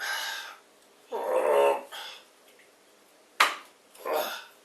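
Parts being handled and worked into a frame: a short scrape, a brief creaking or grunting sound about a second in, then a sharp click and a short rustle near the end.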